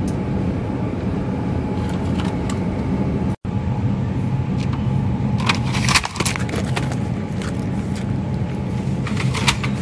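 Steady low hum and hiss of a supermarket refrigerated display case, with sharp plastic clicks and rattles from packaged food and the clear plastic shelf dividers being handled, about halfway through and again near the end.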